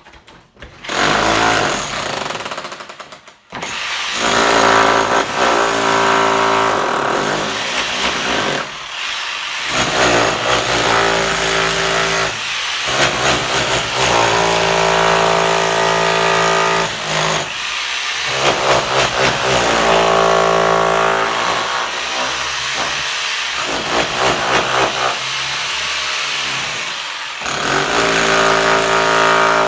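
Powered construction machinery running loudly in stretches of a few seconds, with short breaks between them.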